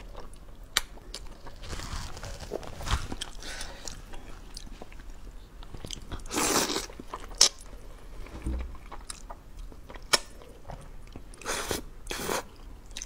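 Close-up eating of sauce-coated zhajiangmian noodles: several long wet slurps of about a second each, with chewing and a few sharp clicks between them.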